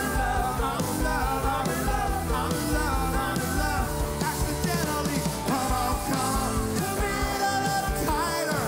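Rock band playing live: a male lead singer singing over electric guitars, bass and drums.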